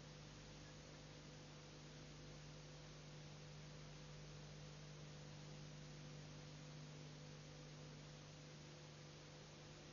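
Near silence: a steady electrical hum with faint hiss underneath.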